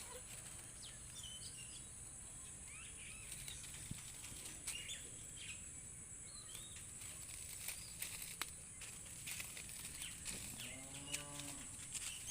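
One drawn-out call from a farm animal, a cow or goat, about ten seconds in, over scattered bird chirps and a steady high-pitched hiss.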